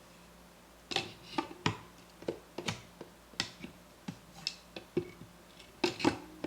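Parts of a Mazzer Mini coffee grinder being handled and fitted together by hand during reassembly: a dozen or so sharp, irregular clicks and knocks, starting about a second in, some with a short ring.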